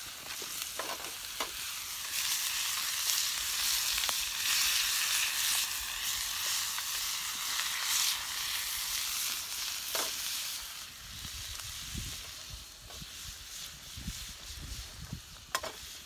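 Roast beef sizzling in a steel frying pan over a campfire, turned with a spatula, with a few sharp clicks of metal on the pan. The sizzle eases in the later part.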